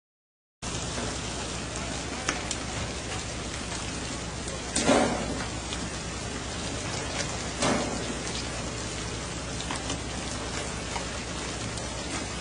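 Steady hissing rush of sea water and spray along the side of a fishing boat under way, starting after a brief silent gap, with a few sharp slaps or knocks, the loudest about five seconds in.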